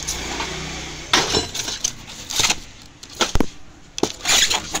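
Bosan 0835 demolition hammer being handled and shifted in its foam-packed box: a string of irregular knocks, clunks and rattles, hard plastic and metal bumping against the packing.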